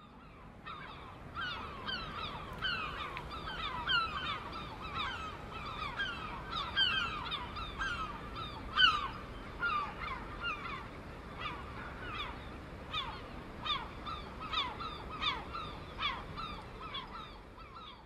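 A flock of birds giving short, honking calls that drop in pitch, overlapping and repeated one or two a second, over a steady low background noise. The calling starts about half a second in and dies away near the end.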